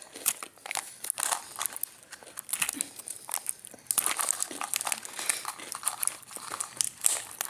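Plastic wrapping of a dip-stick snack pack crinkling and crackling in someone's hands while they try to open it, a busy run of small crackles.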